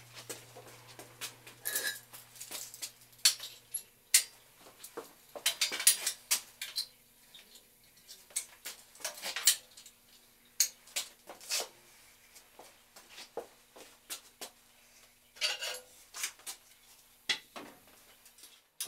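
Irregular metallic clinks and knocks as a steel clinch rim is handled on a metal wheel stand and clamped with locking pliers.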